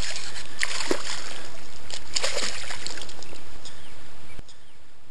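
A hooked bass splashing and thrashing at the water's surface as it is reeled in close to the bank: a few sharp splashes over steady water noise. The sound drops off abruptly about four seconds in.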